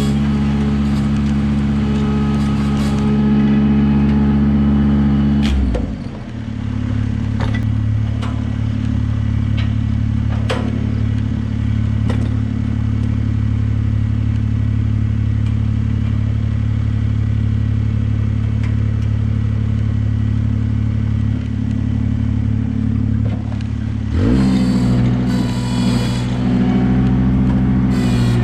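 Ventrac 4500Z compact tractor's engine running at high throttle, dropping to a lower speed about five and a half seconds in and revving back up near the end. A few sharp knocks sound over the engine early on.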